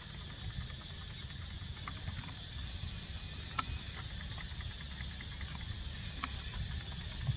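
Steady low rumble with a faint hiss, marked by two sharp clicks about three and a half and six seconds in.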